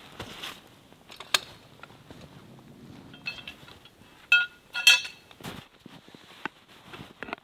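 Metal tent stakes clinking as they are worked loose and handled in the snow: scattered light clicks, with two loud, briefly ringing metallic clinks a little past four and five seconds in.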